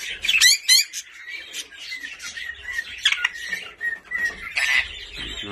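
Budgerigars chirping and chattering, with a few quick falling chirps near the start and a thin, steadier whistled note through the middle.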